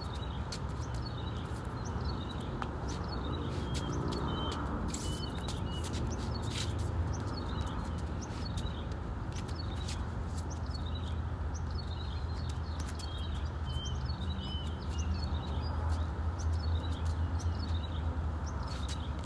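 Small birds chirping over and over, short high curling calls about once a second, over a steady low rumble, with a few scattered sharp clicks.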